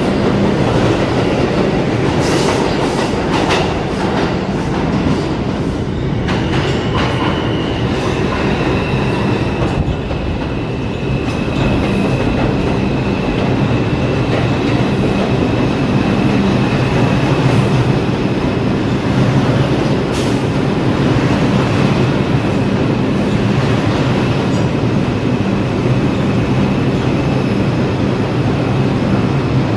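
New York City Subway train of the R142 family moving along the platform: a loud, steady rumble of steel wheels on rail, with clicking over the rail joints in the first few seconds. A high, steady squeal rides over it for several seconds around a third of the way in.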